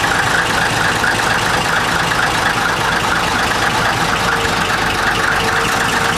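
Large military truck engine idling steadily, close by.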